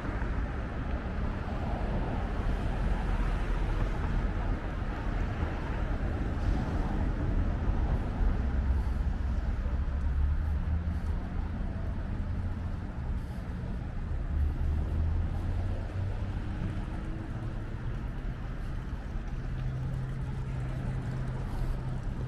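Road traffic: car engines running and passing, a steady low rumble, with a steadier engine hum coming in near the end.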